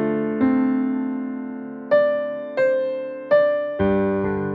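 Background piano music: a slow, gentle melody of single notes and chords, each struck and left to ring and fade, a new one every half second to a second and a half.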